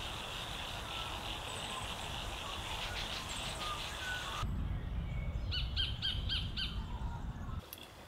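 Sacred kingfisher calling: a quick series of about five evenly spaced, clipped notes, about four a second, a little past halfway, over a low rumble. Before that, faint scattered bird chirps over a steady high hiss.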